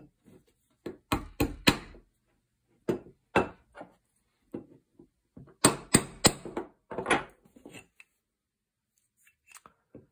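A small hammer tapping parts home in a steel shotgun action during reassembly, with metallic clicks and knocks of the action against a wooden table. The sharp taps come in small groups of two or three.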